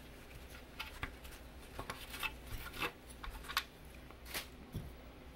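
A cloth rubbing over a ribbed plastic computer case, with a scattered series of faint light clicks and rustles as the plastic is handled.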